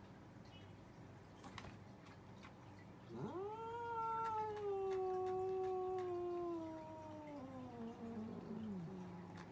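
Domestic cat giving one long, drawn-out yowl that begins about three seconds in, rises sharply, then sinks slowly in pitch over about six seconds before fading out: a warning yowl between two cats squaring off.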